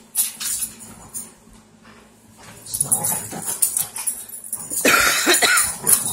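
A puppy making vocal noises during rough tug-of-war play over a rope toy, with scuffling and knocks; louder from about halfway through, with a short sliding cry near the end.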